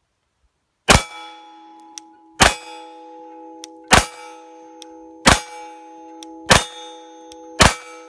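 Six 9mm shots from a Glock 34 pistol, fired slowly one at a time about every second and a half, each followed by a lasting metallic ring.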